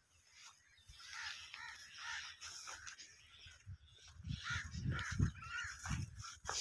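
Crow-like caws, several short calls in a row, with low thumps and rustling of leafy field plants that grow stronger in the second half as someone walks through them.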